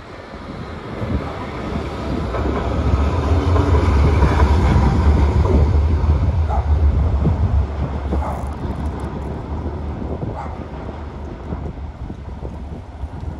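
Newcastle light rail tram (a CAF Urbos 100) passing on street track: a low rumble that builds over the first few seconds, is loudest in the middle, then fades as the tram moves away.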